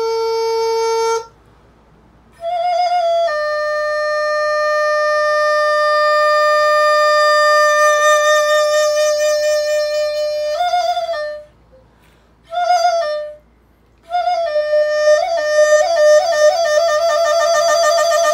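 Solo instrument playing a slow melody: long held notes, one lasting about seven seconds, broken by short silent gaps, with vibrato in the last few seconds.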